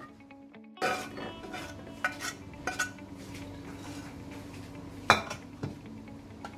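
Metal spatula scraping and knocking against a steel pan as thick gravy is scraped out, with scattered clinks and one louder knock about five seconds in. It starts after a brief silence at the beginning.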